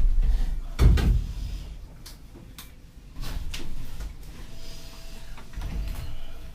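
Heavy thumps and knocks from objects being handled and bumped, the loudest right at the start and about a second in, followed by lighter clicks and scraping.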